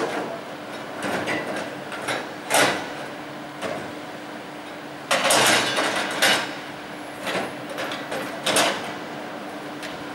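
Tools and equipment being handled and loaded into the steel bed of a tipper truck: a few separate knocks and clanks, with a longer scraping clatter about five seconds in, over a steady low hum.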